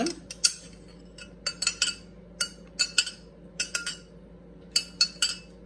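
A metal spoon clinking against a drinking glass: about a dozen light, sharp clinks at irregular spacing, several with a brief high ring, as the last of the hot tea is scraped out. A faint steady low hum runs underneath.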